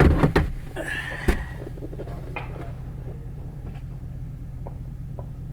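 A quick cluster of knocks and clatter, then one sharp knock about a second later, over a steady low rumble.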